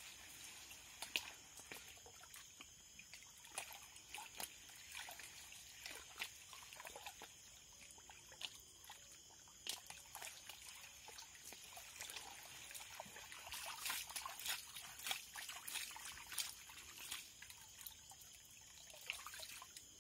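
Faint water sloshing and trickling in a black plastic riffled gold pan being swirled and dipped in a muddy pool, with small irregular splashes: gravel being panned, the lighter sand washed out over the rim.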